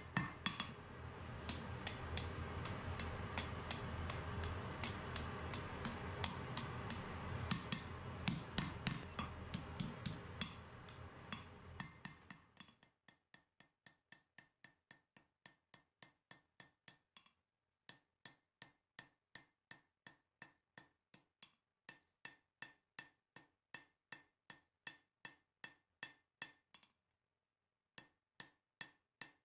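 Hand hammer striking a red-hot spearhead blank on an anvil in a steady run of blows, about three a second, with two short pauses. A steady background sound lies under the blows and fades out about halfway through.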